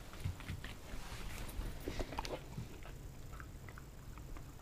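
Pembroke Welsh corgi moving about on a wooden floor: irregular light clicks and knocks of its claws and paws, with a few faint short high sounds a little past three seconds in.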